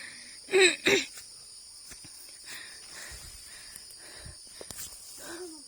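A steady, high insect chorus of crickets or cicadas, with two short, loud vocal cries about half a second in and a fainter one near the end.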